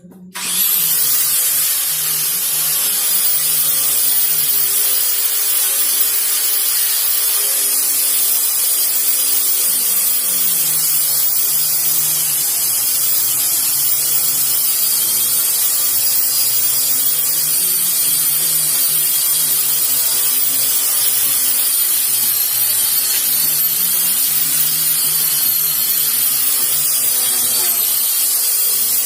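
Electric wood sander switched on about half a second in, its motor whining up to speed, then running steadily with a loud hiss of abrasive against wood.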